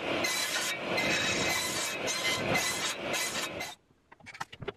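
Table saw running and crosscutting 2x6 softwood lumber on a sled, a steady whine of blade and motor over the noise of the cut. The sound cuts off abruptly near the end.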